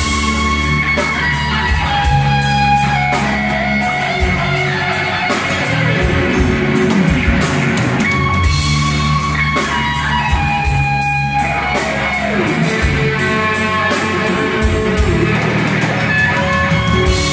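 Live rock band playing: electric guitar and bass guitar over a drum kit, with a steady cymbal beat and a couple of falling guitar runs.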